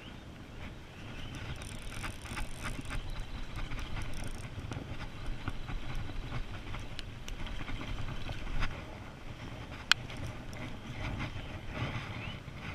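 Spinning fishing reel being cranked and the rod swung out in a cast, with scattered light ticks over a steady low rumble. A single sharp click about ten seconds in is the loudest sound.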